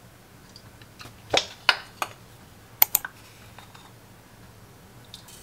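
A handful of sharp clicks and knocks from kitchen items being handled on a counter. They come between about one and three seconds in, the last two in quick succession.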